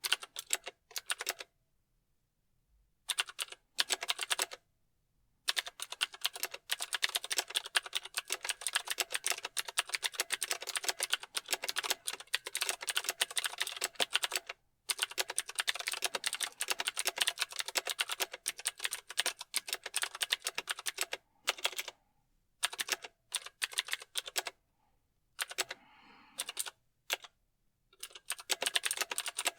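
Mechanical keyboard being typed on: rapid runs of sharp keystroke clicks, with short pauses between bursts.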